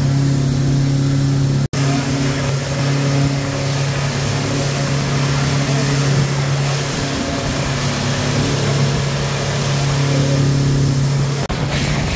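Twin 150 hp outboard motors on a speedboat running steadily at speed, a constant low engine drone over the rush of wind and water, cut off briefly twice.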